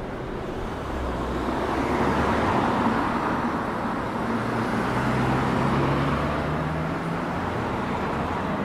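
Road traffic on a city street: motor vehicles driving past, with engine hum and a rushing noise that swells twice as they go by.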